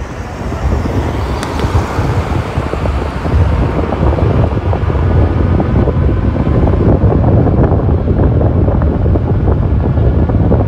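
Wind rushing over the microphone while riding an electric scooter, with road noise beneath; it gets louder about three seconds in.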